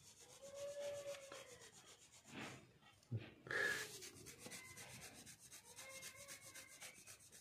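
Small blade scraped back and forth across a knitted cut-resistant glove, a faint repeated rubbing scrape; the glove fabric does not cut through. A short light knock about three seconds in.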